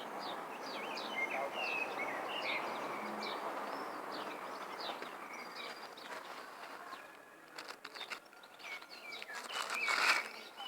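Birds chirping in many short, quick calls over a steady hiss. From about seven seconds in, a run of clicks and rustling builds to its loudest near the end.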